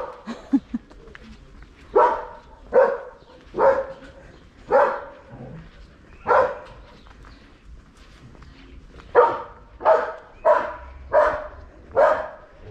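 A dog barking repeatedly: one bark at the start, then a run of about five barks a little under a second apart, a pause of a few seconds, and another run of about five barks from about nine seconds in.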